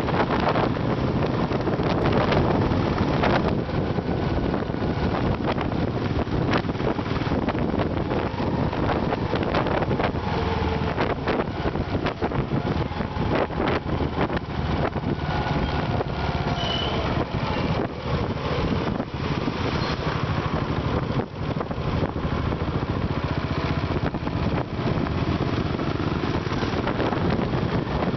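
Royal Enfield single-cylinder motorcycle engine running at road speed, with wind buffeting the on-board microphone.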